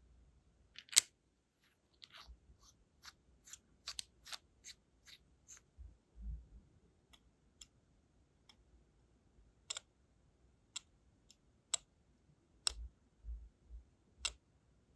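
Metal tweezer tips tapping and clicking against a brass wax-seal stamp head and a wax seal: about twenty sharp, irregular clicks, the loudest about a second in, with a few soft thuds of handling.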